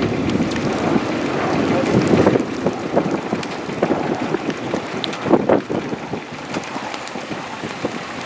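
Wind buffeting the camera microphone in uneven gusts, a rushing noise that swells about two seconds in and again past the middle.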